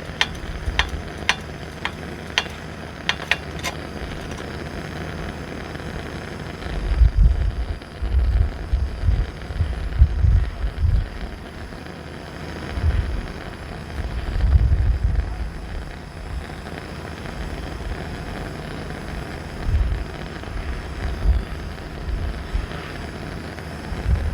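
Coleman 242B pressure lantern being pumped, its pump plunger clicking about three times a second for the first few seconds, then the lit lantern hissing steadily as it burns. Low gusts of wind on the microphone come and go over the hiss.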